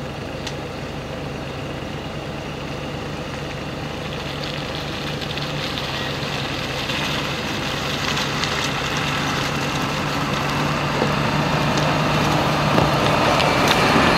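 Diesel engine of a MAN fire engine running as the truck drives slowly closer, its steady low engine note growing gradually louder, with a few light knocks and rattles now and then.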